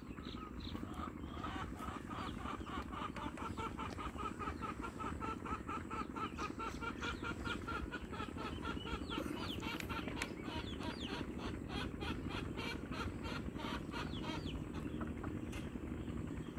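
Chickens sparring, with a long quick run of short clucking notes, about six a second, that thins out and stops near the end, over a steady low background noise.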